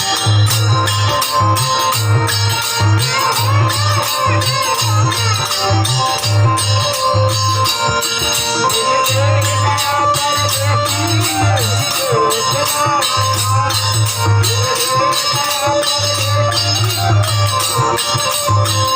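Instrumental interlude of a Bhojpuri folk song band: a fast, even beat of jingling percussion, a low bass pulse in repeated groups, and a wavering melody line over them.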